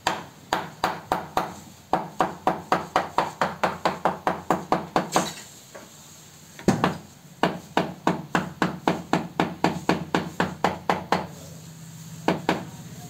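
A mallet tapping a freshly laid floor tile down into its mortar bed: quick repeated knocks about three a second. The knocks come in two runs with a pause of about a second and a half between them, and one last knock near the end.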